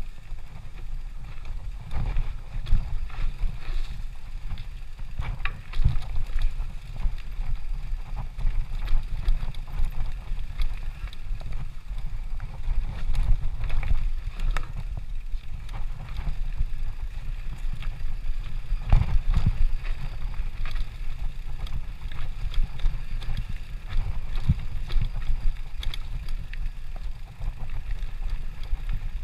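Mountain bike riding down a rough dirt singletrack, heard from a body-mounted action camera: wind buffeting the microphone with a steady low rumble, and frequent knocks and rattles as the bike jolts over bumps in the trail.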